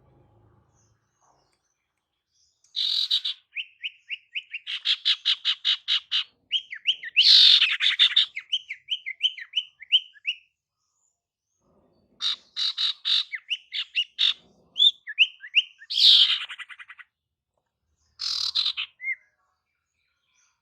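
A female sirtu bird calling in three bouts of rapid chirps and fast trilled notes, separated by pauses of a second or two. It is a lure call used to draw in male sirtu birds.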